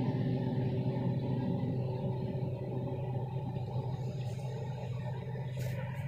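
A steady low machine hum, with a couple of brief clicks near the end.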